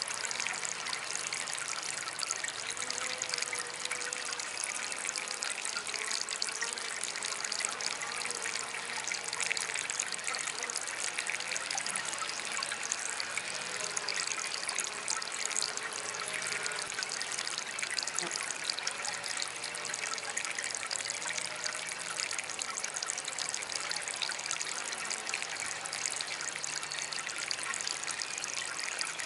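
Small DIY water fountain trickling and splashing steadily.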